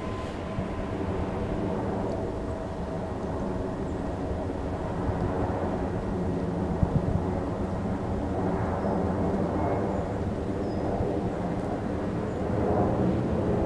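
Steady engine drone, a constant mechanical hum that swells slightly near the end.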